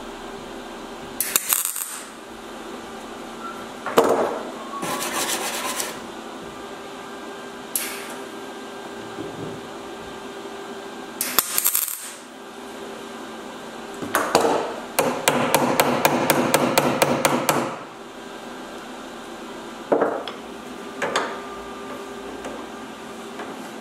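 MIG welder laying spot welds on thin steel body panel: several short bursts of arc noise, and one longer run of rapid crackle lasting about three seconds past the middle, over a steady hum.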